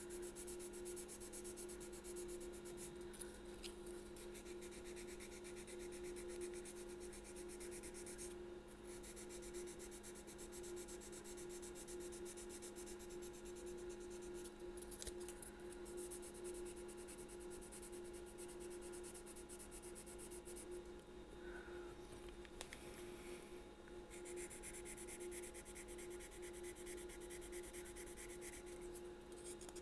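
Fine-grit abrasive paper rubbing in rapid short strokes on a clarinet's thumb rest, sanding it down flush with the wood, with brief pauses about eight and twenty-one seconds in. A steady low hum runs underneath.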